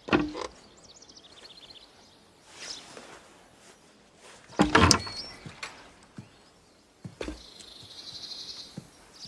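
Quiet outdoor ambience with small birds chirping and a high, rapidly pulsing trill near the end. Several sharp thumps or knocks, the loudest cluster about halfway through.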